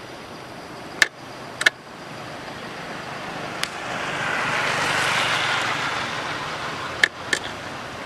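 A vehicle passing by: a rushing noise swells to a peak about halfway through, then fades. A few sharp clicks come near the start and near the end.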